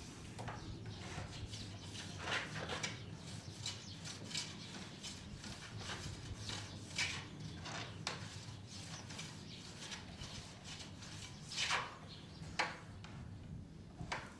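Irregular light knocks and short scrapes, a few louder ones around two seconds in and near the end, over a low steady hum.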